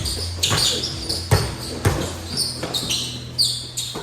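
A basketball is dribbled hard on a gym floor, about six bounces, with short sneaker squeaks in between during a ball-handling drill.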